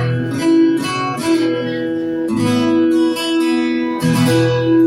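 Guitar strumming sustained chords in a steady rhythm: the instrumental intro of a song.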